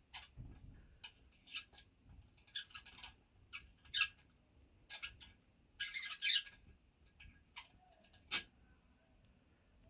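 Hand tools working the aluminium cylinder head's camshaft-holder bolt holes as the worn threads are repaired with Helicoil inserts: a string of short, irregular squeaks and scrapes of metal on metal.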